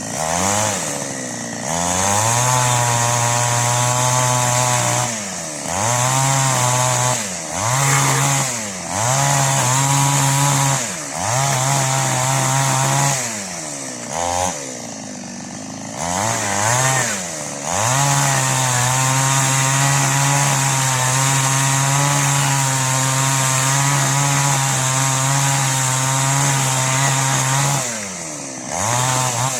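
Preco two-stroke chainsaw with an 18-inch bar cutting wood. The engine is throttled up in a string of short bursts that drop back between them, then held at high revs through one long cut in the second half before falling away near the end.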